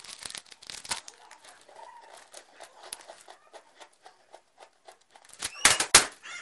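Plastic candy wrapper crinkling and tearing as a small wrapped candy is opened by hand: sharp crackles at first, softer scattered crackles in the middle, and a short burst of loud crinkling near the end.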